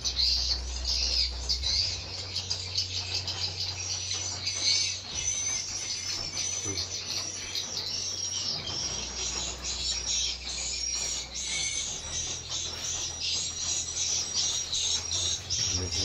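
Swiftlets twittering inside a swiftlet house: many rapid high chirps overlapping without pause. A low steady hum runs underneath.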